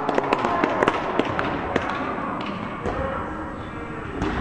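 A futsal ball being kicked and bouncing on a gymnasium floor: a run of sharp knocks, most of them in the first two seconds, with voices in the background.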